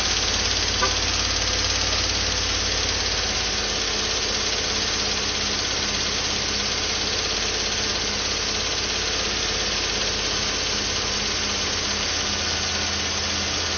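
A 2012 Chevrolet Tahoe's V8 engine running steadily at about 2,000 rpm with the lifters ticking. The engine is being held at higher revs to see whether the lifter tick fades; it starts fading just after this, which the mechanic takes as the sign of a weak oil pump.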